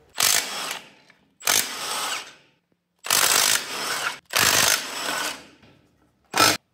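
Milwaukee Fuel brushless cordless impact tool run in five separate bursts, four about a second long and a short last one, undoing the Torx 50 screws that hold the motorcycle's rear wheel to the hub.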